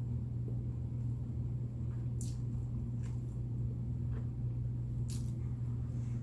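Someone chewing chicken wings with their mouth close to the microphone, with a few short wet smacks and clicks of the lips, over a steady low hum.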